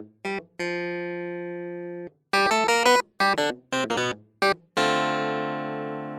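Cheerful instrumental background music: short keyboard-like notes broken by brief gaps, with two long held chords, one near the start and one from about five seconds in.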